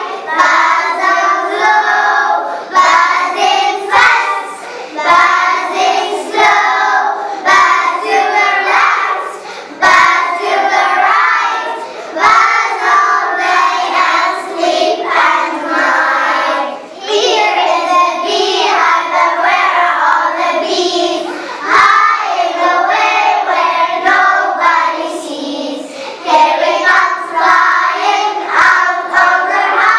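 A group of young preschool children singing a song in English together in unison, with a few short taps now and then.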